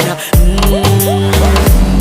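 Background music: an upbeat reggae-style dance track between sung lines, with heavy bass, regular drum hits and a few short rising swoops near the middle.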